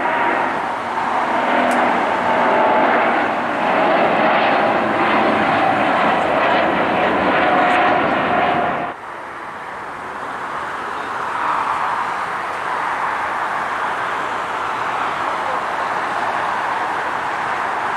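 Boeing 777's twin jet engines at takeoff thrust as it lifts off and climbs, a loud rushing roar with a steady whine running through it. About nine seconds in it cuts off abruptly to a quieter, steady jet-engine noise from an Airbus A320 on the runway.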